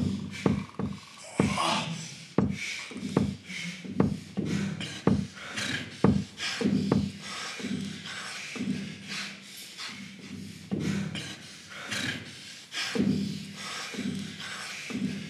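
Rhythmic, irregular bursts of a person's breath and mouth sounds, about one to two a second with sharp clicks among them. They are loud at first and grow quieter through the second half.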